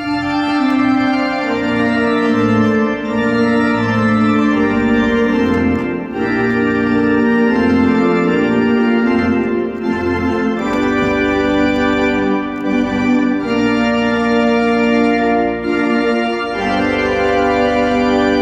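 Three-manual organ played with full sustained chords on the manuals over a pedal bass line, the chords changing every second or two.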